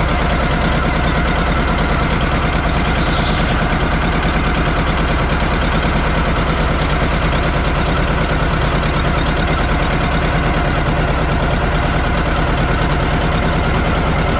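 John Deere 830's two-cylinder diesel engine idling steadily, its exhaust a fast, even run of pops.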